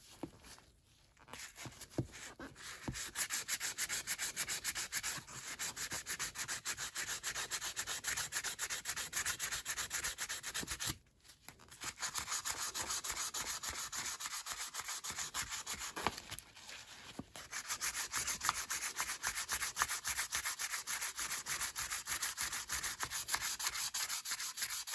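Rapid back-and-forth hand scrubbing of an abrasive against the metal of a rusty Snap-on T handle, in quick regular strokes. It stops briefly twice, about eleven seconds in and again around sixteen seconds.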